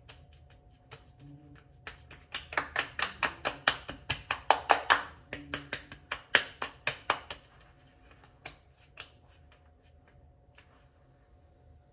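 A quick run of sharp, light taps, several a second, going on for about five seconds and then thinning out to a few scattered clicks.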